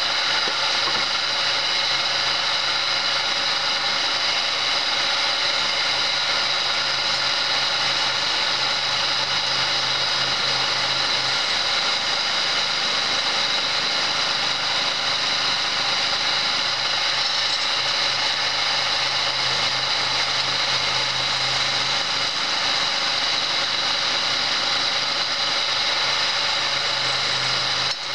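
Homemade wood lathe running steadily, its electric motor and belt drive humming, while a turning chisel scrapes and cuts a spinning wooden baluster. The low part of the sound drops back for a few seconds midway, then returns.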